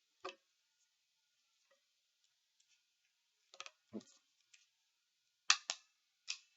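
A desk stapler being handled and pressed: scattered sharp clicks and knocks, with a quick double click about five and a half seconds in the loudest.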